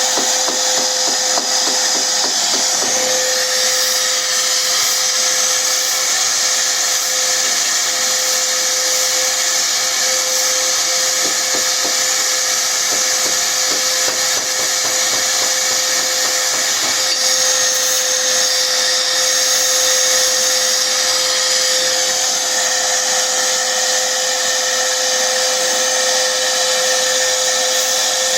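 A power tool running continuously: a steady whine over a loud, even hiss.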